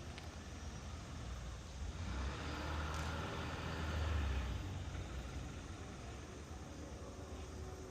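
Low engine rumble of a passing vehicle, swelling to its loudest about four seconds in and then easing.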